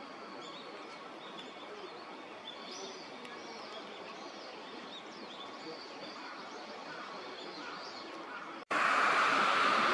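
A flock of Eurasian wigeon calling: scattered short whistles over a steady background hiss. Near the end the sound cuts abruptly to a much louder, denser hiss.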